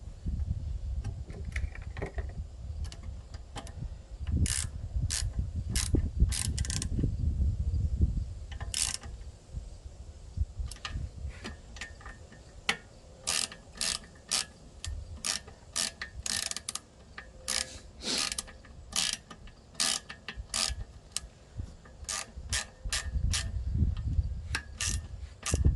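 Socket ratchet wrench clicking as bolts are run down. The clicks come in short runs with pauses at first, then a steady succession of clicks from about halfway through.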